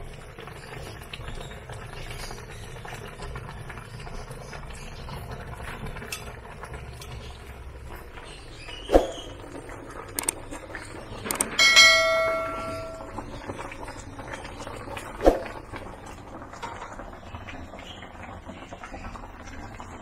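A bell sound effect dings once in the middle, its ringing tone dying away over about a second and a half, with a click shortly before it, as in a subscribe-button animation. Two sharp pops come a few seconds before and after the ding, over a steady low hiss.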